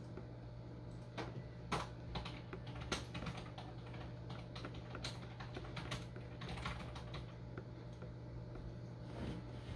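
Keypad buttons on a handheld TV signal analyzer clicking as they are pressed again and again, an irregular run of short clicks, over a steady low hum.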